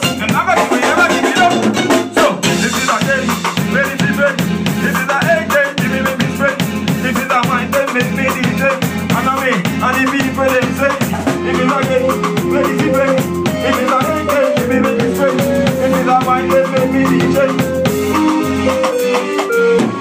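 Live band playing a reggae-style groove. The drum kit keeps a steady beat of regular kick-drum thumps with cymbals, and electric guitar and a melodic line play over it.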